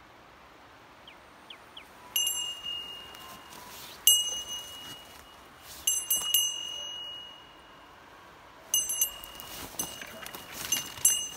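A small metal bell, carried while walking, jingles in irregular rings every second or two over the rustle of footsteps through leaves and brush.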